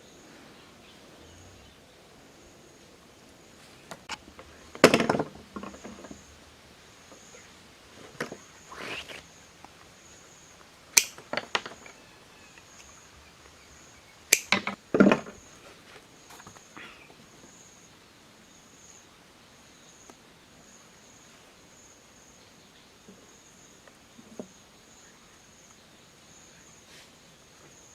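An insect calls in a steady series of high pulses, a little more than one a second. Several loud, sudden sounds break in between about five and fifteen seconds in, some of them in quick pairs.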